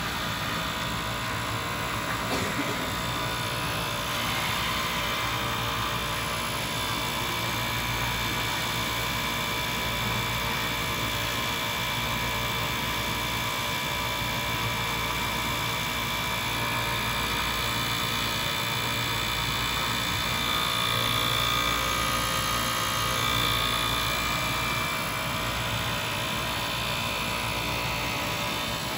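Automatic towel edge-sewing machine running, its two industrial four-thread overlock sewing heads stitching the long edges of a blue microfiber towel strip. It makes a steady high-speed machine whir with faint high whining tones.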